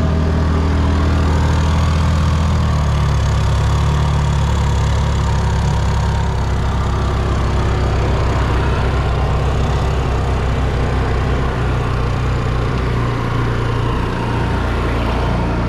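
Honda EU3000i and EU3200i inverter generators running together in parallel under a load of halogen work lights; the louder EU3000i has a deeper exhaust tone. The engine note shifts in pitch a couple of seconds in and again about three-quarters of the way through.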